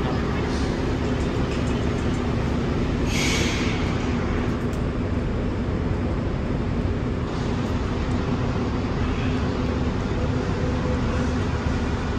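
Heavy vehicle running steadily with a low hum, and a short hiss of air about three seconds in.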